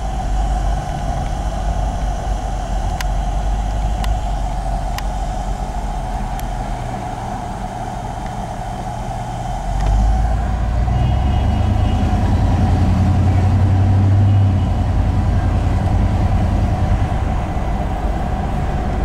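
A motor vehicle's engine and road noise while driving, a steady rumble that grows louder and deeper about halfway through as the engine pulls harder.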